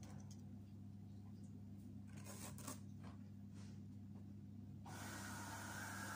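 Faint rustling and light handling sounds of a thin spring roll wrapper being laid out and filling being placed on it, over a steady low hum. A steady hiss comes in about five seconds in.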